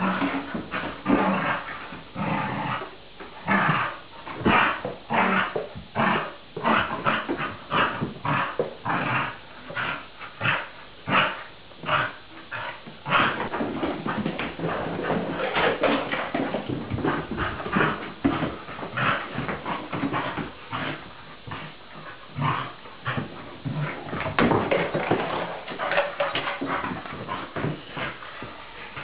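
Soft-coated wheaten terrier vocalizing in excited greeting: a long run of short whines and yips, about two a second, running together for several seconds in the middle.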